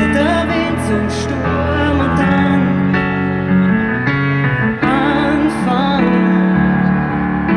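Live pop ballad played through a stadium PA: a woman singing with vibrato over sustained band accompaniment, heard from within the open-air crowd.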